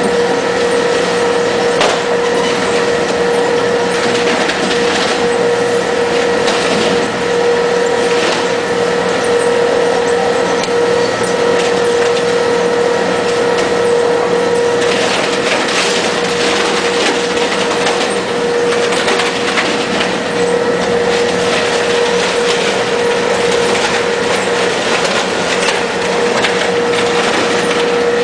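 Polystyrene recycling machine running with a steady hum and continuous crackling and crunching as the foam is broken up. The crunching is thickest about halfway through.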